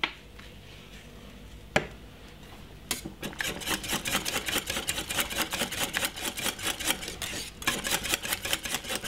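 Wire whisk beating thick peanut porridge in a stainless steel saucepan: rapid, steady clicking and scraping of the wires against the pan. It starts about three seconds in and pauses briefly about seven and a half seconds in. A single sharp knock comes shortly before the whisking starts.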